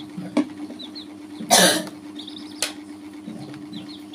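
Young chicks peeping softly now and then, with a quick run of peeps just after the middle, over a steady low hum. A loud short noise about a second and a half in and two sharp taps stand out above the peeping.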